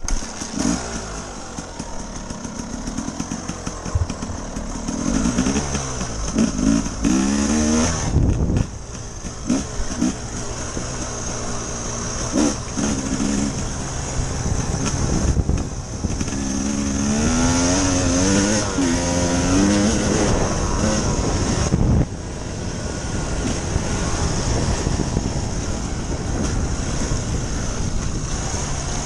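2014 Husqvarna TE300's single-cylinder two-stroke dirt-bike engine ridden hard on a trail, its pitch repeatedly climbing and falling with throttle and gear changes. The sound breaks off and changes abruptly a few times.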